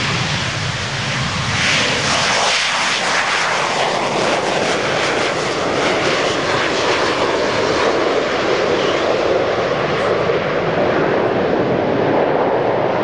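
Harrier GR9A jump jet's Pegasus vectored-thrust turbofan at takeoff power as the jet lifts off and climbs away. A loud jet roar that turns harsher and hissier about two seconds in, then settles into a steady, lower roar.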